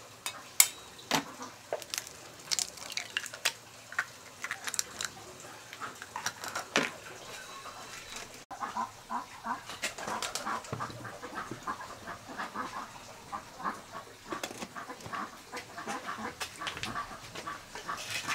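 Sharp clinks and knocks of a stainless steel steamer pot and lid being handled, loudest near the start. From about halfway, chickens cluck steadily in the background.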